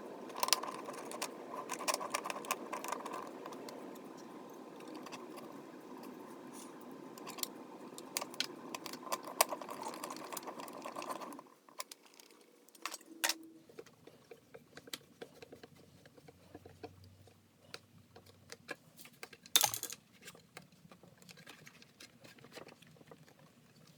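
Scattered small metallic clinks and taps of hand tools working a small piece of sheet metal. A steady background hiss stops suddenly about halfway through, and there is one sharper clack near the end.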